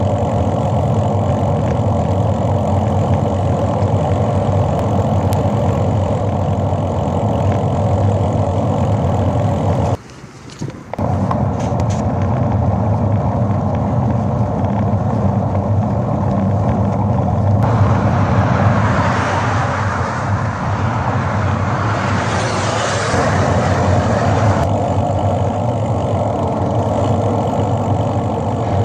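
Steady road and engine noise inside a moving car's cabin, with a low hum under it. It drops out briefly about ten seconds in, and a louder hiss rides over it for several seconds past the middle.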